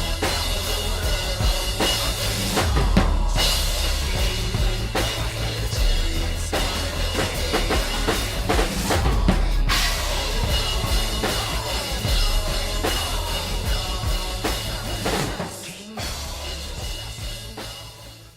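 Drum kit played along to a recorded backing track: steady kick, snare and cymbal hits over a heavy bass line. It thins out near the end and stops abruptly.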